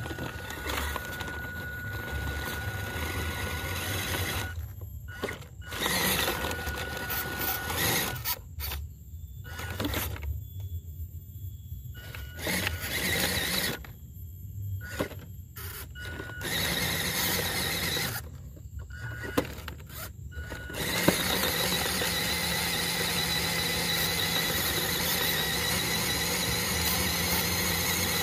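Small brushed 180-size electric motor and stock plastic gearbox of a WPL RC crawler whining as it drives. It runs in short stop-start bursts with the throttle, then holds a steady run for the last seven seconds or so.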